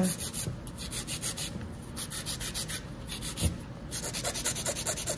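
A hand nail file rasping over long acrylic nails in quick, even back-and-forth strokes, several a second, as they are filed into shape. One soft knock comes about three and a half seconds in.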